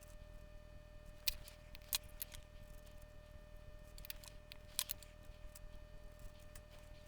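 A few sharp, scattered clicks and taps of small hand tools working on a circuit board during desoldering, over a faint steady hum.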